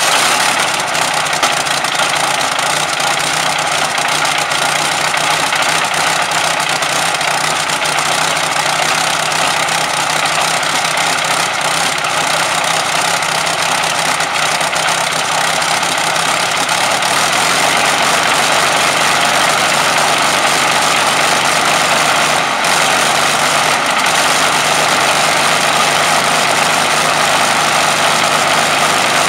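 Rolls-Royce Merlin supercharged V12 aero engine on a static test stand, running loud and steady just after starting, with its propeller turning. It gets slightly louder from a little past halfway.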